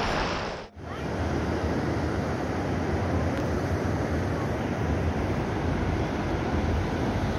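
Background music cuts off under a second in, then surf breaks steadily with wind buffeting the microphone.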